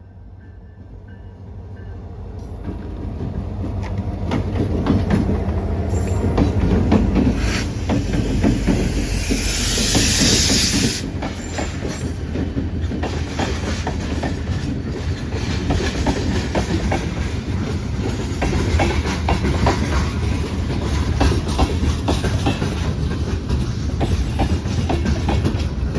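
A BNSF freight train led by a GP38-2 diesel locomotive rolls past. The low engine and wheel rumble swells over the first few seconds, a burst of hiss comes about nine to eleven seconds in, and then the wheels keep up a steady clicking over the rail joints.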